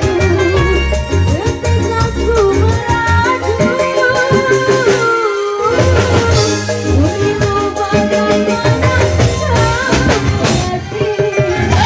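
Live dangdut band music: a drum kit and bass keep a steady dance beat under a woman singing into a microphone. The bass drops out for a moment about five seconds in.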